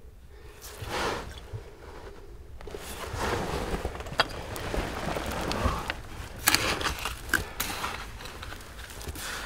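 Digging by hand through gritty, rubble-filled privy soil: crunching and scraping of dirt and debris, with a few sharp clicks of hard bits knocking together.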